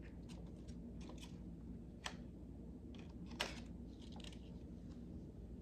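A few faint, sharp clicks and taps of small craft pieces being handled, over a low steady room hum. The clearest clicks come about two seconds in and about three and a half seconds in.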